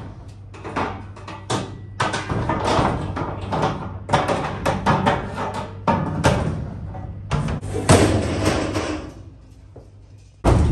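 Metal decking for a cattle trailer's front compartment being handled and fitted into place, screechy and loud: clanking knocks with stretches of metal scraping, a quieter spell shortly before a loud bang near the end.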